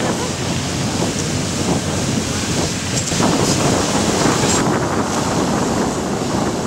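Steady rushing noise of fire hoses spraying water onto a smouldering boat, with wind buffeting the microphone.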